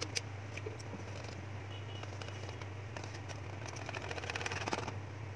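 A spoon clicking and scraping against a steel bowl while besan (gram flour) batter is stirred, in irregular taps that come thicker about four to five seconds in. A steady low hum runs underneath.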